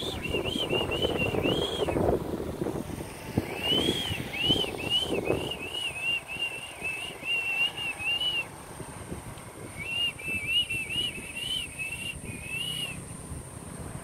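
A songbird singing: quick runs of clear whistled notes, each rising and falling, several a second, in three phrases with short pauses between them. Low wind rumble on the microphone sits under the first half.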